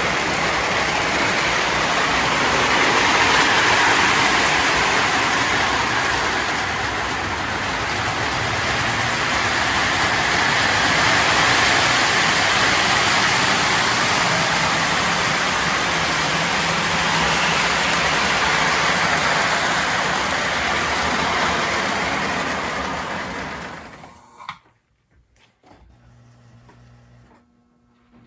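Toy electric train running on three-rail tinplate track: steady rolling and motor noise from the locomotive and cars. It fades away about 23 seconds in as the train stops, then ends with a click.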